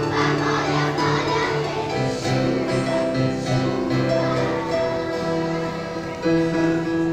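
Children's choir singing with acoustic guitar and piano accompaniment, held notes moving steadily from one to the next.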